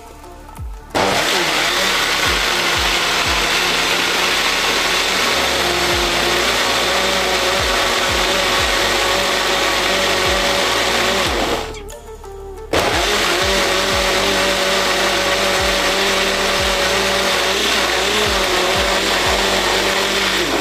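Electric mixer grinder (mixie) running steadily with a whine, blending liquid beetroot and carrot juice in its lidded jar. It starts about a second in, stops for about a second near the middle, then runs again.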